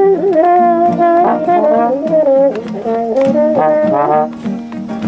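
Trombones playing in a jam: a melody line sliding between notes over lower held notes.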